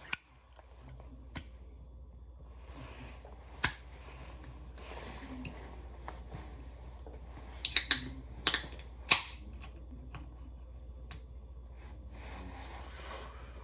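Scattered sharp clicks and taps, with a cluster of four or five about eight to nine seconds in, over a steady low hum.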